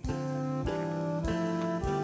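Background music: sustained instrumental notes changing every half second or so, with a brief drop-out right at the start.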